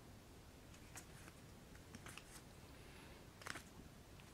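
Near silence, broken by a few faint soft clicks and rustles of playing cards being handled, the clearest few about three and a half seconds in.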